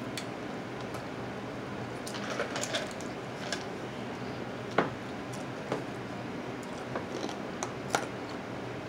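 Boiled blue crab shells being cracked and pulled apart by hand: scattered sharp cracks and snaps, the loudest about five seconds in and another near the end, over a steady low hum.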